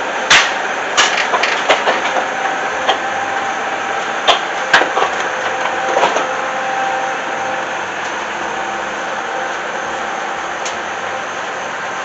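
Bobcat 873 skid steer's diesel engine running steadily, with a string of sharp metallic clanks over the first six seconds or so and then even running.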